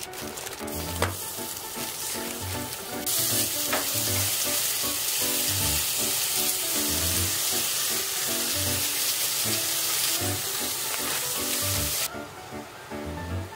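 Pork and sliced onions sizzling as they fry in hot oil in a pressure-cooker pot, a loud steady sizzle that starts about three seconds in and cuts off suddenly near the end. Background music plays throughout.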